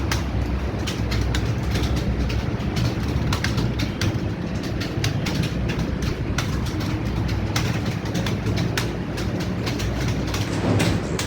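Many computer keyboards being typed on at once: a dense, irregular clatter of key clicks over a low, steady hum.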